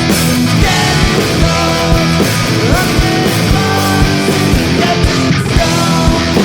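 Loud rock music with distorted electric guitar and a steady drum beat.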